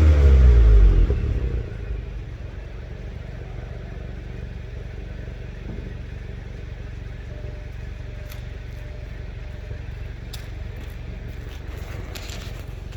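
Stock 2020 Volkswagen GTI's 2.0-litre turbocharged four-cylinder engine dropping back from a rev in the first couple of seconds, then idling steadily. A few faint clicks in the second half.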